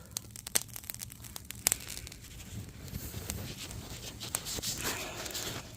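Oak wood fire and charcoal crackling with scattered sharp pops over a steady hiss of pork ribs cooking on the grill, with a rustling swell near the end.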